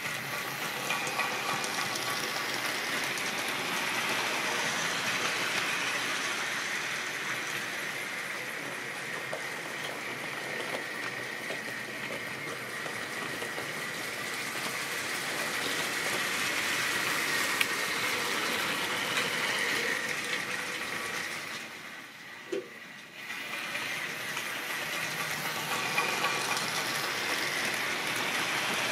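Model railway trains and wagons running on the layout's track: a steady rolling noise with a faint high whine, dropping away briefly about three quarters through.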